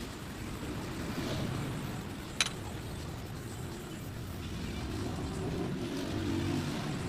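Restored 1973 Honda CB100's single-cylinder engine running, its level swelling and easing, with one sharp click about two and a half seconds in.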